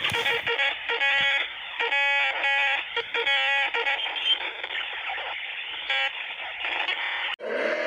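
Emergency alert broadcast audio heard over a narrow, radio-like channel: a hissing, static-filled signal broken by a series of short buzzing tone bursts. It cuts off abruptly just before the end, and music starts.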